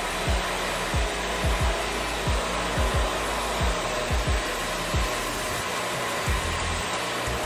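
Band sawmill running as its blade cuts through a cherry log: a steady rushing noise, with low thumps every half second or so.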